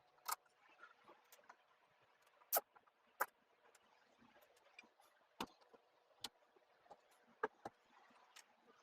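Scattered sharp clicks and light knocks, about ten in all at irregular intervals, over a faint hiss: small hard parts being handled and set in place.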